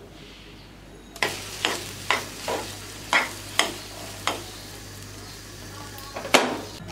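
A spoon stirring thick semolina halwa in a nonstick frying pan, scraping against the pan in a run of about seven quick strokes. After a pause, two more strokes come near the end, the last one the loudest.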